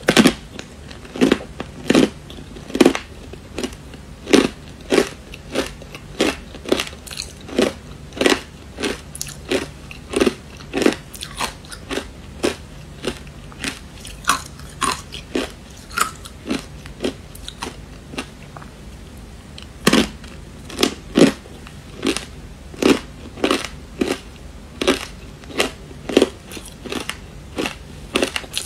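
Matcha-powdered ice crunched between the teeth: a close run of sharp, separate crunches, about one and a half a second, with a pause of a few seconds past the middle.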